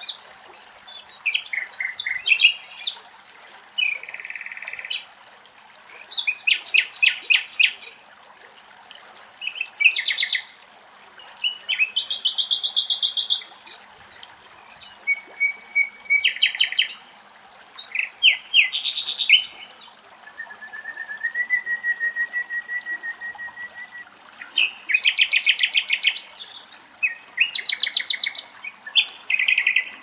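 Common nightingale song: a run of varied phrases of rapid trills and repeated notes, broken by short pauses. About two-thirds of the way through comes one long whistled note that swells in loudness.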